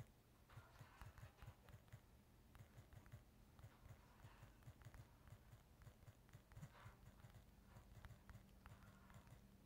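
Faint, quick, irregular taps of fingers typing on a phone's touchscreen keyboard, several a second, over a faint low hum.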